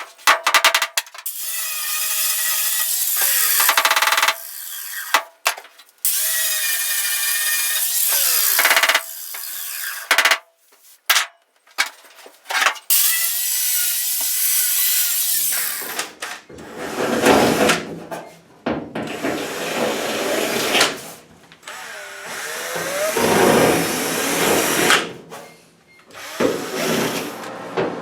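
A power tool run in repeated bursts of a few seconds each. The first three bursts have a steady whine; from about halfway on the bursts are rougher and deeper.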